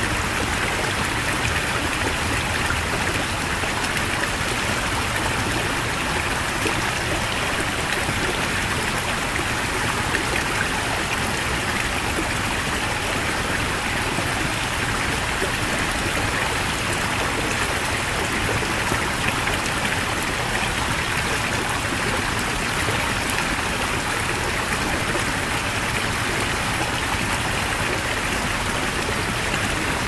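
Heavy mountain stream: fast water rushing and splashing over rocks in a steady, unbroken roar.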